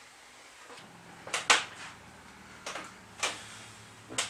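A handful of sharp knocks and clicks, about five in a few seconds with the loudest about a second and a half in, from handling a small Hangkai outboard motor on its clamp-on mount at a raft's transom. A faint low hum starts under a second in.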